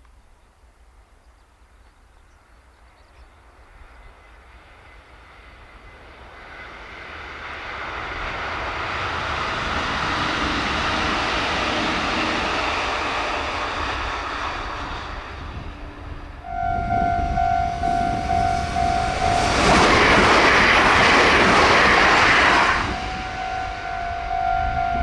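A Japanese electric train passing at speed, its rushing rail noise building over several seconds and then fading. After an abrupt change, a level crossing's electronic warning bell rings steadily while a train rushes through very loudly for about three seconds, drowning out the bell. The bell comes back before the sound cuts off.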